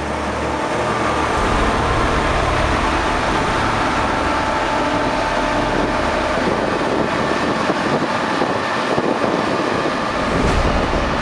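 John Deere S960i combine harvester running steadily: a dense, even mechanical noise with a few faint, held whining tones.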